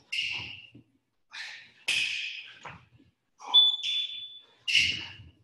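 Thumps and scuffs of hands and sneakers landing on a wooden floor during burpees, four times. A little past halfway a high, steady beep of about a second from an interval round timer marks the end of a timed interval.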